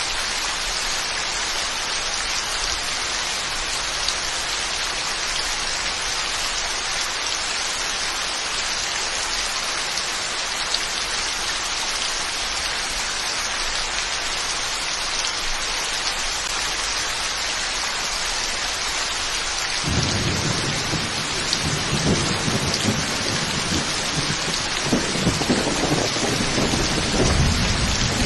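Steady heavy rain falling. About two-thirds of the way through, a low thunder rumble rolls in and grows louder toward the end.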